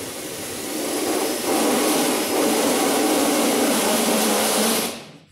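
Power drill spinning a reamer bit, grinding out a mounting hole in the vehicle's sheet-metal fender to enlarge it where the snorkel template was slightly out of line. A harsh, steady grinding that gets louder about a second and a half in and stops shortly before the end.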